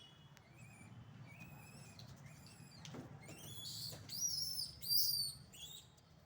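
Monkeys giving a run of high-pitched squeaky calls. The first are short and soft; they grow into louder, bending squeals, the loudest about four to five seconds in.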